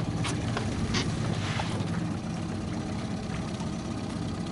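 Boat motor running steadily at slow trolling speed, with a few faint clicks in the first couple of seconds.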